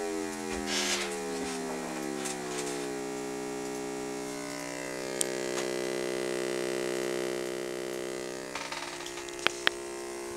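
Square-wave tone from an Atmega8 microcontroller toggling a pin to drive a speaker, a buzzy electronic note holding one low pitch. A few clicks sound over it, two sharp ones near the end.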